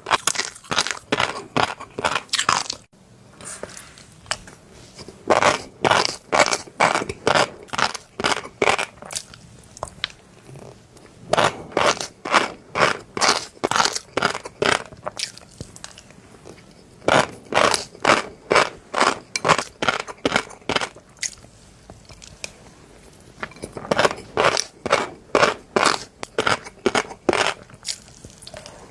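Crunchy fish roe being chewed close to the microphone. The crunches come in runs of about three to four a second, each run lasting a few seconds, with short pauses between.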